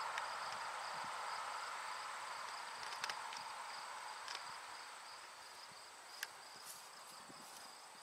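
Insects trilling steadily outdoors in summer: a high pulsing chirp and a higher continuous whine. Under them a broad hiss slowly fades away, and there are a few faint clicks.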